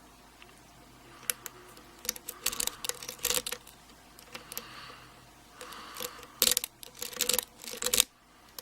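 Metal clicking and rattling of a lock pick and tension wrench working the pins of an American 1305 six-pin padlock during single pin picking. The clicks come irregularly, in two loud clusters: one a couple of seconds in and one in the second half.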